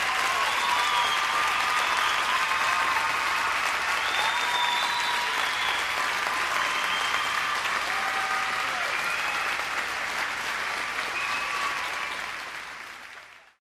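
A large crowd applauding steadily, fading out near the end.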